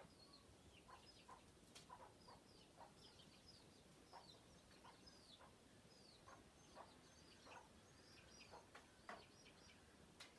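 Chickens calling faintly: many short, high, falling peeps scattered throughout, mixed with short, lower clucks.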